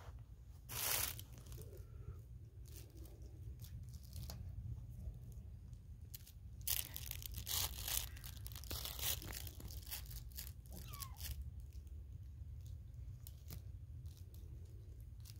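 Scratching, crunching bursts of kittens clawing and biting at a woven basket and its braided handle. The loudest come about a second in and again in a cluster around the middle, with scattered small clicks between.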